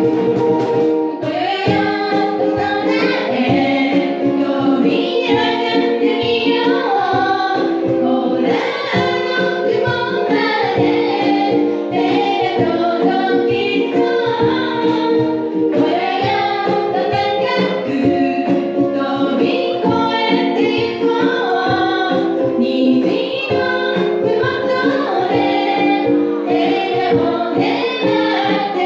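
Live ukulele group: voices singing together in a bright, upbeat song over strummed ukuleles keeping a steady rhythm.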